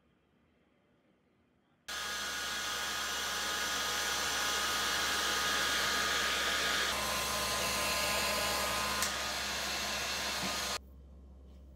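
Handheld hair dryer running as hair is blown dry: a steady rush of air with a faint whine in it. It starts about two seconds in and cuts off sharply near the end.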